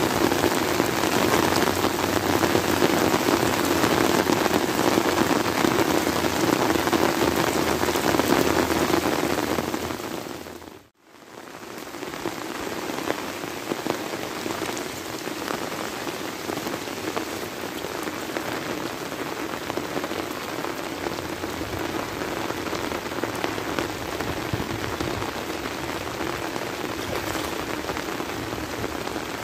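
Heavy rain falling steadily on flooded rice paddies, a dense even hiss of drops on water. It cuts out for a moment about eleven seconds in and comes back a little quieter.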